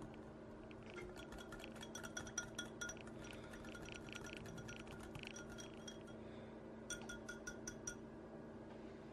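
Wire whisk stirring liquid in a small glass bowl, its wires clinking quickly against the glass in runs of light ringing taps, the clearest about a second in and again near the end.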